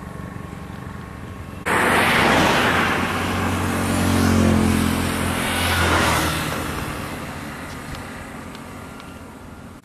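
A motor vehicle engine passing by: the noise comes in suddenly a couple of seconds in, its hum swells to a peak around the middle, then fades away.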